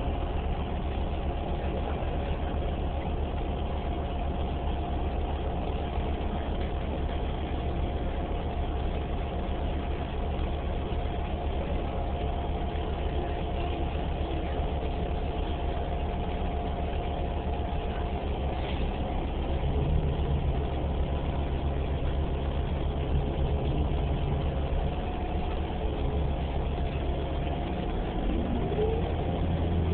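Steady drivetrain hum of a 2011 New Flyer Xcelsior XDE40 diesel-electric hybrid bus, heard from inside the passenger cabin. The hum deepens about two-thirds of the way through, and a faint rising whine comes in near the end.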